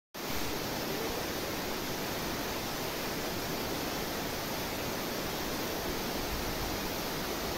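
Steady rushing noise of a waterfall, Tamaraw Falls, cascading down a rock face. It cuts in abruptly just after the start and then holds even throughout.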